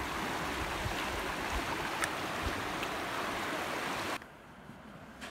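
Rushing water of a small class II river rapid, a steady hiss that cuts off abruptly about four seconds in to a much quieter background.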